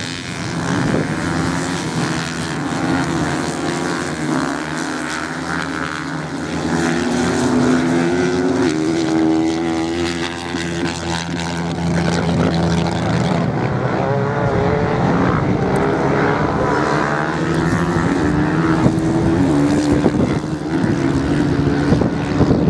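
Several off-road motorcycles racing together, their engines revving up and down with rising and falling pitch as they accelerate and back off.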